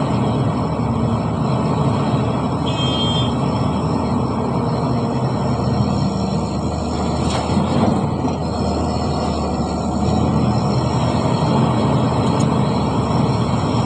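Heavy diesel earthmoving machinery running steadily, with a dense, even engine noise throughout.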